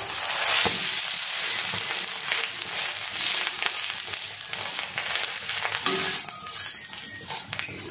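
Bread omelette sizzling in ghee on a hot griddle (tawa), freshly flipped and pressed flat with a steel spatula. The steady sizzle thins out about six seconds in.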